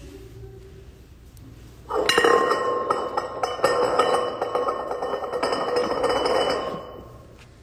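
Clear plastic wrap crinkling and crackling with sharp clicks, starting about two seconds in and stopping shortly before the end.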